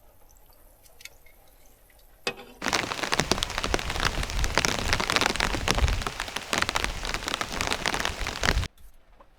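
Water spraying or running hard for about six seconds, with a dense crackling hiss. It starts just after a click and cuts off suddenly.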